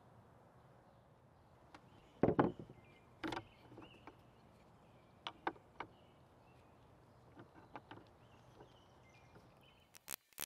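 Metal mallet head knocking and clunking against a bench vise as it is handled, a few separate knocks with the loudest about two seconds in, over faint birdsong. Near the end a quick run of sharp, evenly spaced strokes begins.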